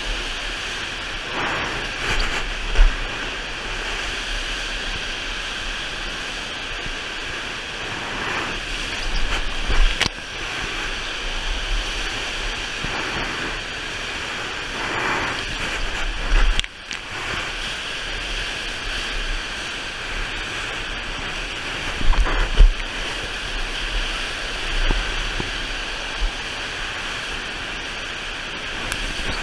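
Steady rush of water from a FlowRider sheet-wave machine pouring over the ride surface, heard up close, with louder surges of spray several times.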